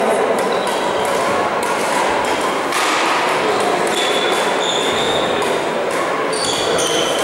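Badminton hall ambience: a steady reverberant murmur with occasional sharp shuttlecock hits and short high squeaks of shoes on the court floor.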